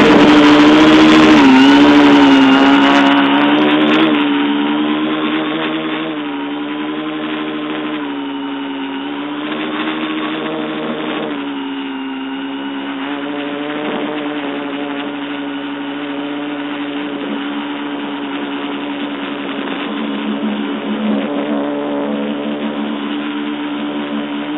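Quadcopter motors and propellers buzzing right next to the microphone, a steady hum whose pitch wavers slightly as the craft holds and adjusts its flight. It is loudest for the first few seconds, then settles a little quieter and steady.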